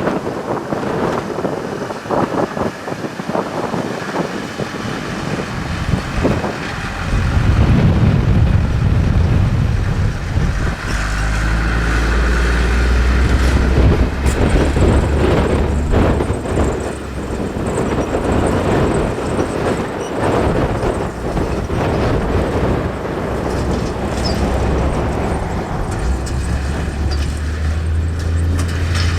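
Heavy farm machinery engine running: irregular knocks and clatter at first, then about seven seconds in a deep engine drone comes in, grows louder and runs on steadily.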